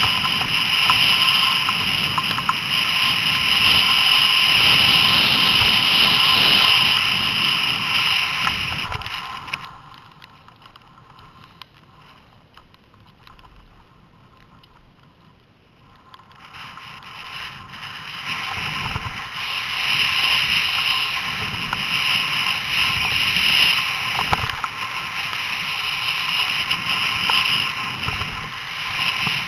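Skis running and scraping over packed snow, with wind rushing over a helmet-mounted camera microphone as the skier descends. About ten seconds in the noise falls away to a faint hiss for roughly six seconds, then builds back up.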